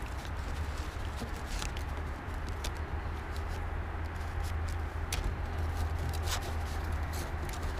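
Thin titanium stove pipe being flexed and wiggled by gloved hands, giving scattered light metallic ticks at irregular intervals over a steady low rumble.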